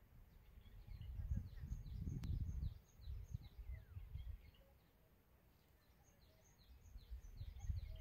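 Small birds chirping in quick runs of short, high notes, with one longer falling call about three seconds in. Low, gusty rumbling, like wind buffeting the microphone, comes and goes: it is the loudest sound for the first few seconds, fades out around the middle, and rises again near the end.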